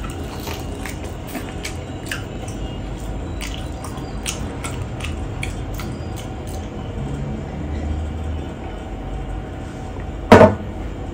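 Close-up wet eating sounds: chewing, with small sharp smacks and clicks of the mouth scattered throughout. About ten seconds in there is a single loud knock.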